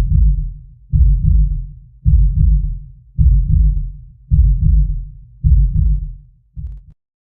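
Heartbeat tension sound effect: deep, low thumps at a steady pace of about one every second, seven in all, with the last one cut short.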